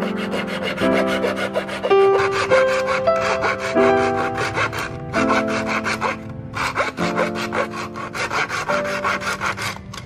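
Small fine-toothed hand saw cutting across a dry bamboo tube in quick back-and-forth strokes, with short pauses about five and six seconds in, stopping just before the end. Background music with piano-like notes plays underneath.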